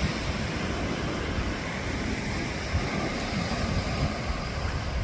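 Surf washing onto the beach, with wind buffeting the microphone in low rumbles.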